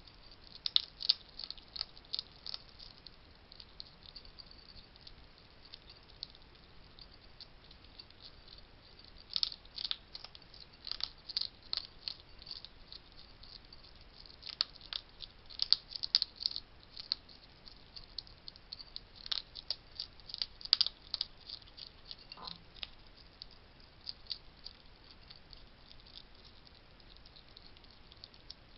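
Wild hedgehog crunching dry food at a feeding station: crisp clicking crunches in irregular spells, with quieter pauses between them.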